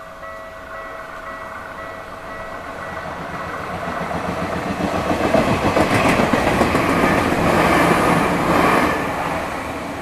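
A Tokyu Ikegami Line electric train passes over a level crossing. Its rumble and wheel clatter build from about three seconds in, stay loud for several seconds, then fade near the end. Under it, the crossing's warning bell rings steadily, drowned out while the train goes by.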